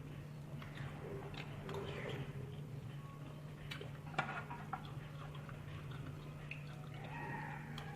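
Eating sounds from a tteokbokki-and-ramen mukbang: scattered small clicks and taps of utensils against a dish, with mouth noises, over a steady low hum.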